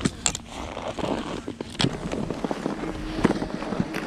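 Handling noise of ski gear in snow: several sharp clicks and knocks from ski boots and skis over a rustle and scrape of boots, snow and clothing.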